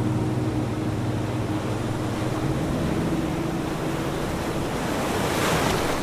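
Ocean surf washing steadily, with one wave surging louder near the end, over soft sustained background music tones.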